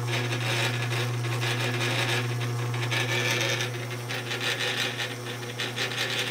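Delta DP-220 drill press running in low speed through its Vary-Slo pulley speed controller: a steady electric motor hum with the continuous whir and rub of the V-belts and pulleys.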